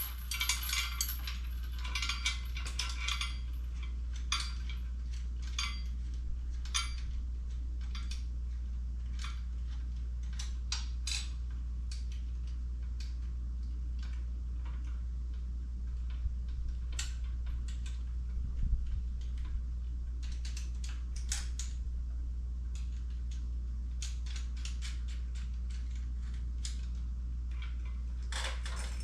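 Scattered light metallic clicks and clinks of hand tools and steel parts being handled while assembling a transmission jack, over a steady low hum.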